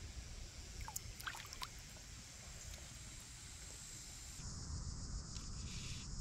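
A few faint, brief splashes of river water about a second in as a smallmouth bass is released from a hand in the water, over a steady low wind rumble on the microphone.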